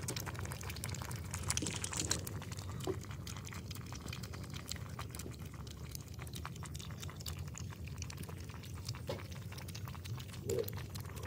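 Several puppies lapping milk from a metal basin: a continuous run of quick, wet clicking laps.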